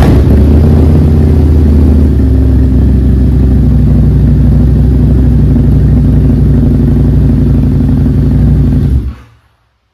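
Harley-Davidson V-Rod's liquid-cooled Revolution V-twin running through a Vance & Hines aftermarket exhaust, super loud, idling steadily just after starting on freshly fitted spark plugs; the pitch settles slightly about two seconds in and the engine is shut off about nine seconds in.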